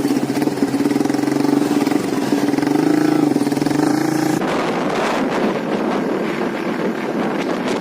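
A vehicle engine running, its pitch wavering slightly. About halfway in the sound changes abruptly to rushing wind noise on the microphone.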